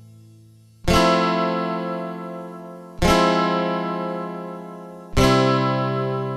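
Background music: acoustic guitar chords strummed slowly, three chords about two seconds apart, each left ringing and fading.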